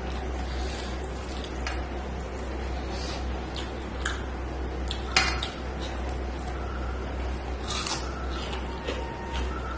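Fingers mixing rice and curry on a stainless steel plate, with scattered clicks and scrapes of fingertips and nails against the metal; the sharpest click comes about five seconds in. A steady low hum runs underneath.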